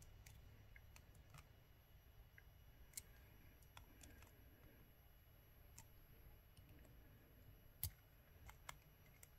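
Near silence broken by scattered faint clicks of jewellery pliers on thin wire as the wire is wrapped around the stem of a wire loop. The clearest click comes about eight seconds in.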